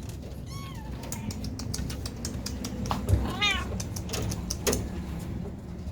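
Domestic cats meowing: two arched calls, one about half a second in and another about midway, with a run of short sharp clicks between and after them over a steady low hum.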